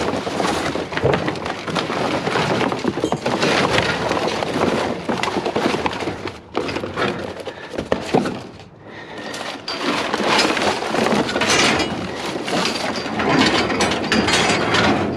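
Scrap and debris being rummaged through and handled: continuous clattering, knocking and cracking, with a brief lull about eight and a half seconds in.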